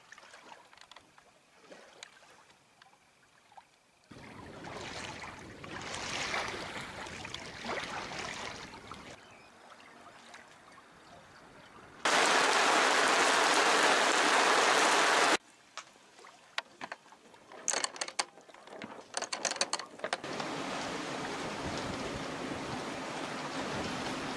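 Water and wind noise aboard a sailing yacht in a squall, with scattered clicks and knocks. About halfway through, a loud, even hiss of heavy rain comes in for about three seconds and cuts off suddenly. A steady hiss runs on near the end.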